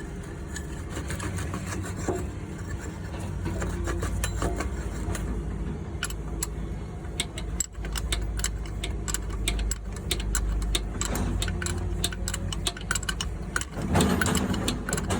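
Diesel truck engine idling steadily, just after a turbocharger replacement, with a run of sharp ticks and clicks over it that grows busier in the second half. A brief louder surge comes near the end.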